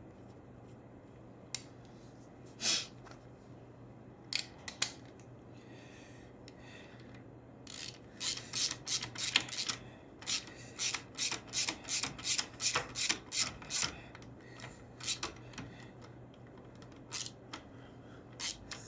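Hand ratchet wrench clicking in a run of quick strokes, about two to three a second for several seconds in the middle, with a few separate clicks and clinks of tools before and after.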